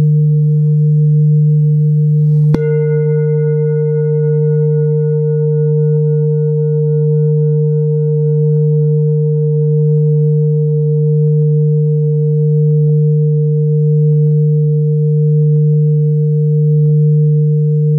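Tibetan metal singing bowls ringing with a deep, sustained hum that pulses slowly in loudness. About two and a half seconds in, a bowl is struck with a padded mallet, adding a brighter ring of higher tones that fades away over several seconds while the deep hum carries on.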